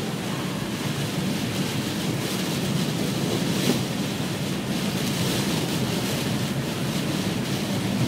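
Heavy rain drumming on a car's windshield and roof, mixed with the hiss of tyres on a flooded road, heard from inside the moving car. One sharper tap stands out about three and a half seconds in.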